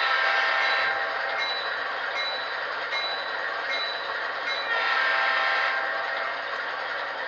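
Model train sound decoder playing a diesel locomotive horn through a small onboard speaker: two blasts about a second long, one at the start and one about five seconds in. Between the blasts come evenly spaced ringing strikes about every three-quarters of a second, like a locomotive bell.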